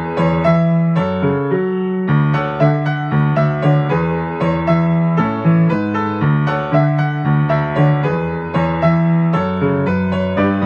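Acoustic grand piano played solo: a pop-song arrangement with busy right-hand notes struck several times a second over a steady left-hand bass, running on without a break.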